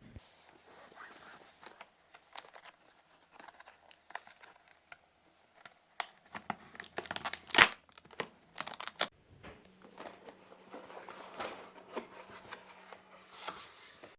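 Packaging from a robot vacuum cleaner's box being handled, torn and crumpled by hand: irregular rustles and crackles, loudest about halfway through.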